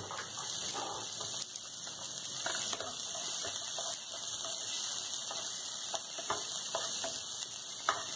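Chopped onion and green chilli frying in oil with cumin, a steady sizzle, with a spatula scraping and ticking against the nonstick pan as they are stirred.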